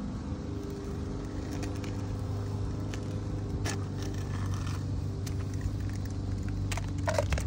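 A steady low mechanical hum, like an engine running nearby, with a few light scrapes and clicks as an asphalt shingle is trimmed.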